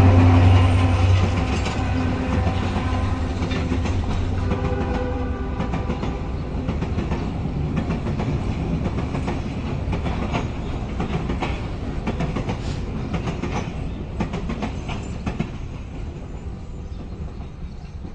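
A diesel train's horn sounds a chord that cuts off about half a second in, with a fainter blast about four seconds in. Then the cars roll past with a rhythmic clickety-clack of wheels over the rail joints, fading toward the end as the train moves away.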